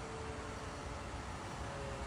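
Steady low rumble and hiss of road traffic, with a faint steady tone.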